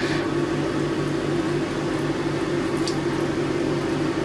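Background fan running with a steady mechanical hum whose low note pulses evenly, with a faint click about three seconds in.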